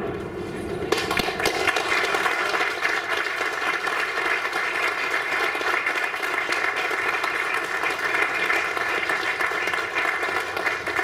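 Audience applauding. The clapping starts sharply about a second in and keeps up steadily.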